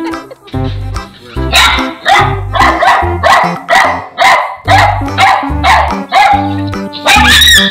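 A dog barking rapidly and repeatedly, about two to three barks a second, starting about a second and a half in, over background music.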